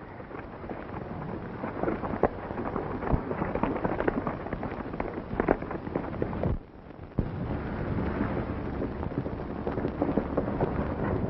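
Hoofbeats of a herd of horses and mounted riders at a gallop on dry ground, a dense, continuous rumble with sharper cracks scattered through it. It dips briefly about six and a half seconds in, then carries on.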